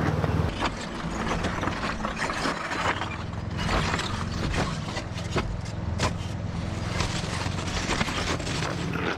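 Ford Bronco crawling slowly over rocks, its engine running low and steady under irregular cracks and clicks of rocks crunching and shifting under the tyres.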